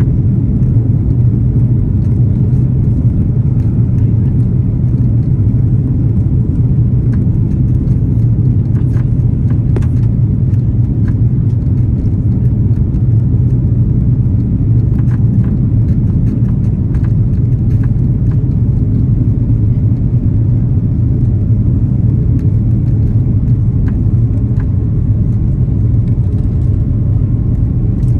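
Steady low drone of an Airbus A330-300's Rolls-Royce Trent 700 engines heard inside the passenger cabin from a window seat, with a few faint ticks from the cabin.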